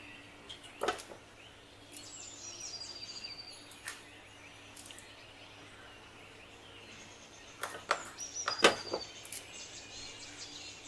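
Morning birdsong: scattered high chirps and a quick trill of repeated notes. A few sharp knocks cut through it, the loudest about two-thirds of the way in.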